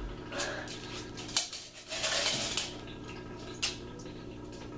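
Coins clinking and rattling in a small container: a couple of sharp clanks and a short burst of jingling shaking about two seconds in.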